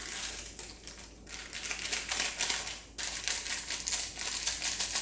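Plastic seasoning sachet crinkling and rustling as it is handled and torn open, in stretches broken by short pauses about a second in and again around three seconds in.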